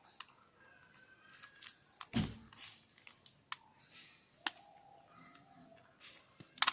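Faint plastic clicks and knocks of a Rubik's cube being prised apart by hand to work its first piece loose, with a duller, louder knock about two seconds in.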